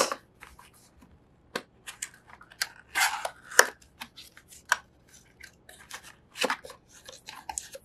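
Small paperboard boxes handled and pulled open by hand: irregular short scrapes, taps and rustles of thin cardboard, a few louder scrapes about three seconds in.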